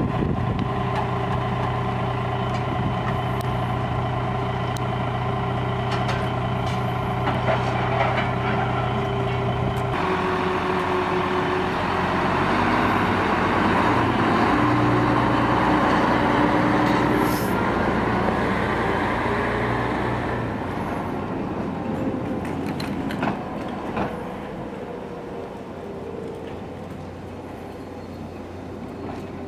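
Diesel engine of a rail track-maintenance motor car running close by with a steady note. About ten seconds in the engine note changes and grows louder as the car gets under way, then dies down gradually toward the end.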